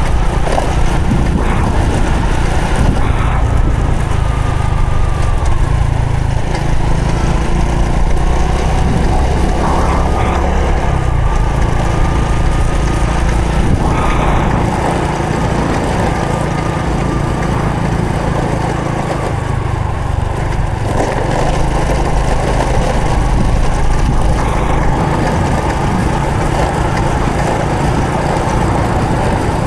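Honda Supra X 125 FI's single-cylinder four-stroke engine running while the motorcycle is ridden, its note shifting up and down a few times with throttle and gear changes.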